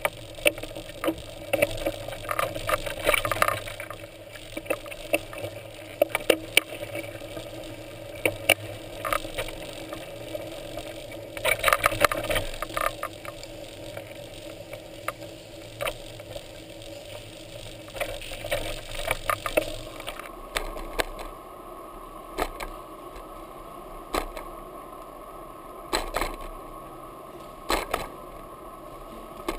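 Bicycle rolling over rough, cracked, wet pavement, heard through a bike-mounted camera: a steady tyre hum with frequent sharp rattles and knocks as the bike jolts over bumps and debris. The steady hum changes, turning higher and thinner, about two-thirds of the way through.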